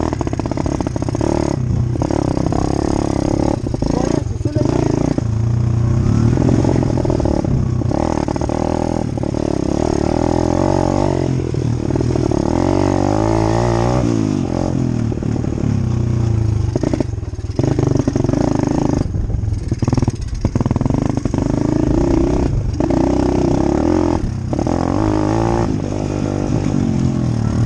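Motocross dirt bike engine running under way, its pitch rising and falling as the throttle is worked, with brief drops every few seconds where the throttle is rolled off.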